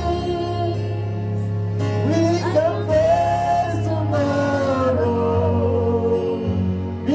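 Gospel worship song: a singer's voice on long, gliding held notes over a steady low instrumental accompaniment.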